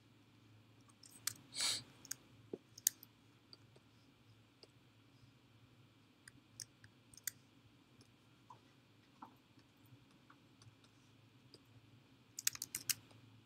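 Scattered sharp clicks from work at a computer, with a quick run of about five clicks near the end, over a low steady room hum. A short, louder rush of noise comes a little under two seconds in.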